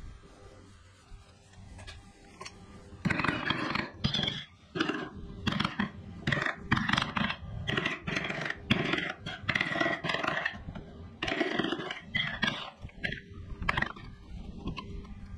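Wood being worked by hand: a carving tool scraping and cutting across the wood in quick repeated strokes, about two a second, starting about three seconds in.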